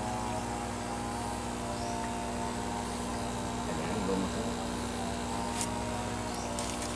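Steady hum of a pump motor running at constant pitch, with a few faint splashes near the end as the dip net works the water.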